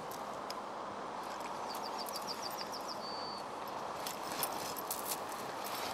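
Open-field ambience: a steady outdoor hiss. About two seconds in, a bird sings a quick run of about seven high notes ending in a short held note. Scattered clicks and rustles, more of them in the second half, come from a bag being handled.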